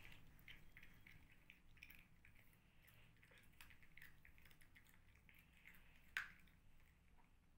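Near silence: faint room tone with a few soft scattered clicks, and one sharper click about six seconds in.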